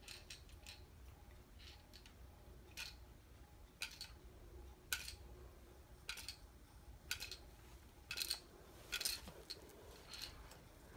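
Faint, sharp plastic clicks at irregular intervals, about one a second, from a small yellow plastic toy being fiddled with in the hands.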